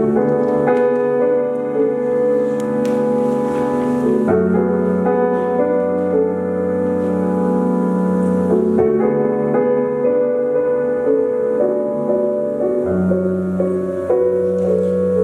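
Instrumental music: sustained chords that change about every four seconds over a steady bass.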